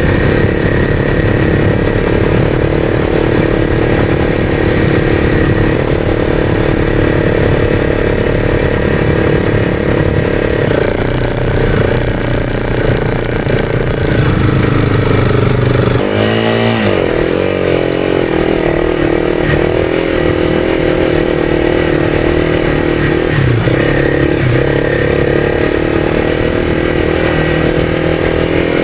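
Honda CRF300's single-cylinder four-stroke engine running hard under load as the motorcycle ploughs through deep sand. The revs dip and climb again about sixteen seconds in.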